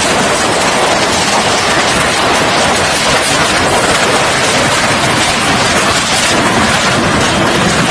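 Floodwater rushing past, a loud, steady rushing noise without breaks.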